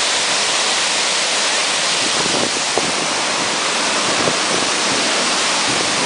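Waterfall's falling water: a steady, unbroken rush.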